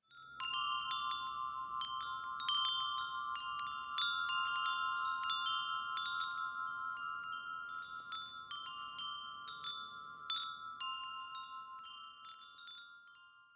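Wind chimes ringing, struck at irregular moments a few times a second, with several high tones sounding and overlapping; the ringing thins out and fades away near the end.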